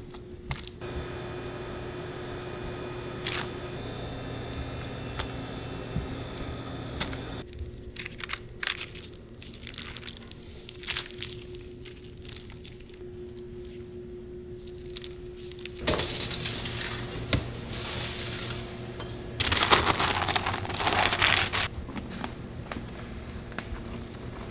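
Pastry dough being cut with a steel ring cutter and peeled off baking paper on a steel worktable: scattered clicks and knocks of metal on steel, with paper rustling and crinkling loudly in two stretches a little past the middle, over a steady low hum.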